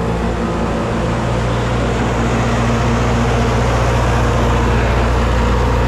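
Seed cleaning plant running steadily: an even, low engine-like hum with a machine haze over it, getting a little louder about two seconds in.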